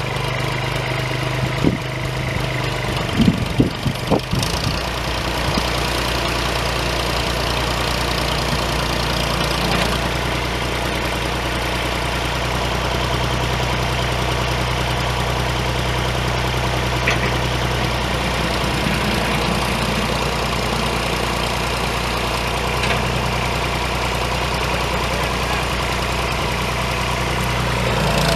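Allis-Chalmers One-Sixty tractor's three-cylinder diesel engine idling steadily, with a few sharp clunks in the first several seconds.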